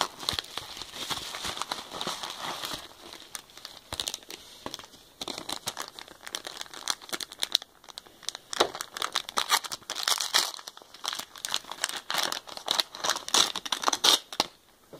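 Packaging being unwrapped by hand: irregular crinkling and crackling with some tearing, busy throughout and eased off briefly about halfway through.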